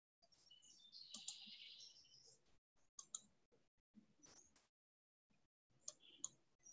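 Near silence with a few faint computer mouse clicks: a soft cluster about a second in, then single clicks around three seconds in and near the end.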